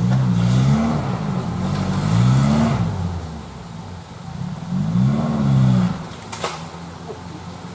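Off-road 4x4's engine revving up and dropping back three times as the throttle is worked, with a single sharp click about six seconds in.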